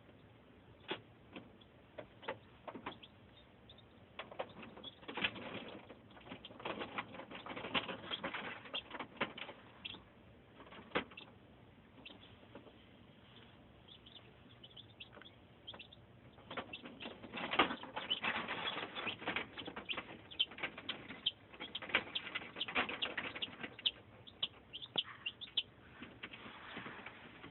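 Domestic chicks cheeping, with busy bursts of scratching and tapping as they move about and peck at a hatching egg, in two spells of activity.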